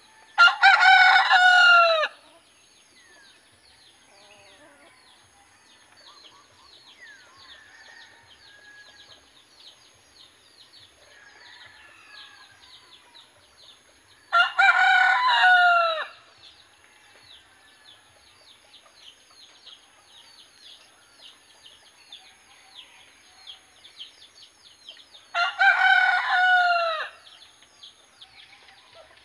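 Native rooster crowing three times: near the start, about halfway through, and near the end, each crow lasting under two seconds. A faint, fast, high ticking runs between the crows.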